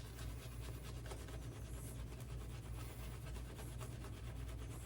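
Shaving brush working a lather, a faint, steady crackly rubbing with a constant low hum underneath.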